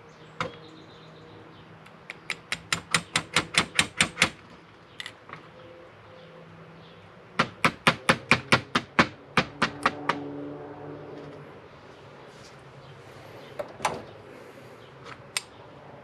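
Light ball-peen hammer taps on a small 2-cycle mower carburetor, two quick runs of about ten sharp taps each at four to five a second, with a few single clicks. The tapping works the emulsion tube loose so it can come out.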